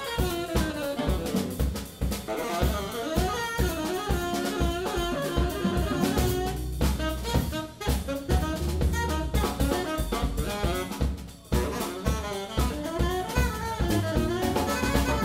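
Live jazz from an eleven-piece band: drum kit playing busily under saxophone and brass lines, with a bass line underneath. The band drops out briefly a few times.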